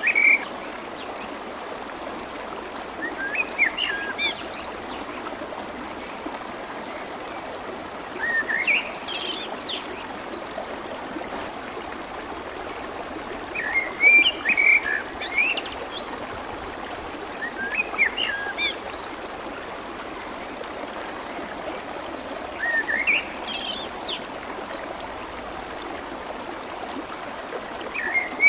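Steady babbling of fast-flowing water, with a songbird chirping short, quick phrases every four to five seconds.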